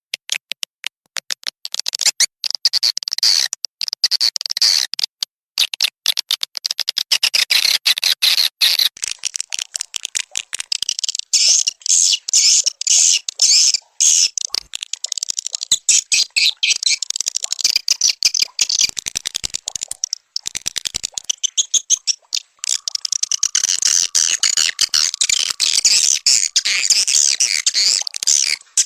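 Swiftlet lure call: a dense, rapid run of high chirps and twitters, the kind of recorded call played in swiftlet houses to draw the birds in to roost and nest. The mix of calls changes about a third of the way in and again near the end.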